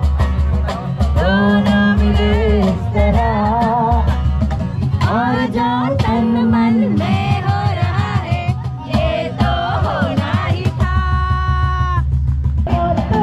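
Music with singing over a steady bass beat, including a long held note near the end.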